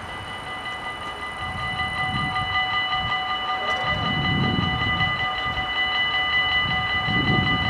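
Level-crossing warning bells start up just after the beginning and keep ringing in a rapid, steady, high clang. This is the warning that a train is approaching and the barriers are coming down.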